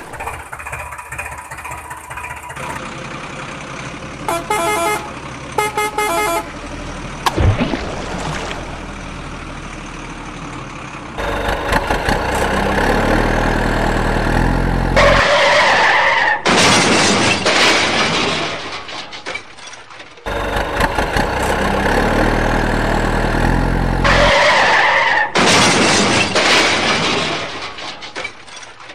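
Dubbed-in truck sound effects: a truck horn honks in two short runs of toots, then a loud truck engine revving up and running. The engine clip cuts off and plays again in the same shape.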